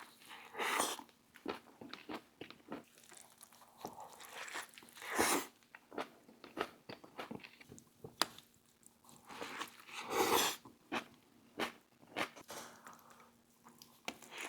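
Close-miked chewing and biting into a loaded Philly cheesesteak on a toasted roll: crunchy bites and wet mouth clicks, with louder bites about a second in, around five seconds and around ten seconds.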